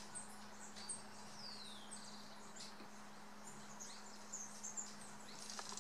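Scattered high, thin chirps of forest birds, with one clear falling whistle about a second and a half in, over a faint steady low hum.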